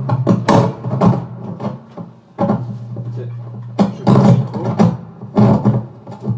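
Knocks and bumps of guitars being handled and moved, over a steady low electric-guitar amplifier hum that stops about four seconds in.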